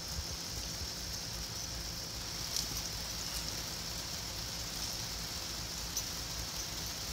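Steady patter of falling water on a wet concrete patio, with a few short splashes as a dog paws and stamps in a tub of water.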